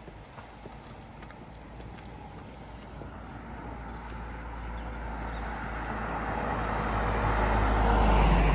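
A road vehicle approaching and passing close by, its engine and tyre noise growing steadily louder and peaking near the end before fading.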